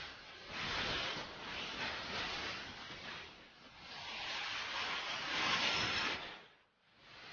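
Hissing noise that swells and fades in waves, the longest swell coming in the second half before it dies away near the end.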